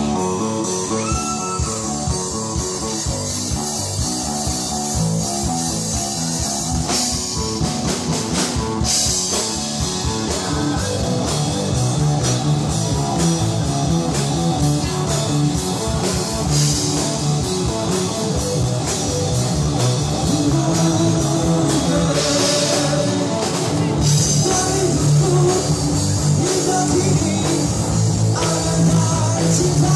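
A rock band playing a song with electric guitar, bass and drum kit, with a man singing.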